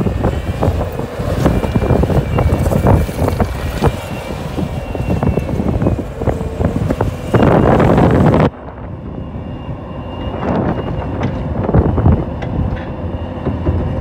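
Bobcat compact track loader working: its diesel engine running with clanking, clattering tracks and knocks from the machine moving dirt and debris. A loud scraping rush comes just before the sound turns abruptly duller and quieter, about eight and a half seconds in.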